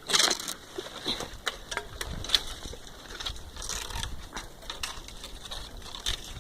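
Irregular crunches and snaps, like footsteps moving through dry leaves and twigs, with a louder rustle at the start.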